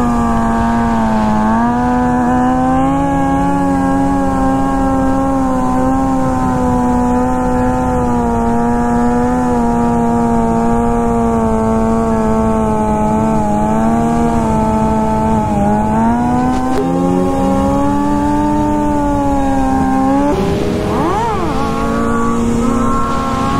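Sport motorcycle engine held at steady high revs through a long wheelie, its pitch wavering slightly as the throttle is worked. About twenty seconds in, the pitch jumps and briefly swoops up and down before settling again.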